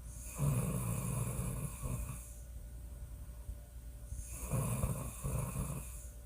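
A woman snoring loudly: two snores, each about two seconds long, about four seconds apart.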